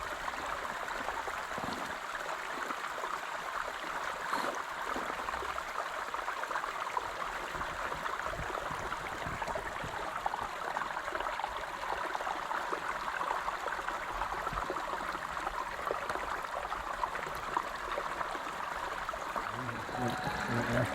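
Creek water flowing steadily over rocks: a continuous, even rushing.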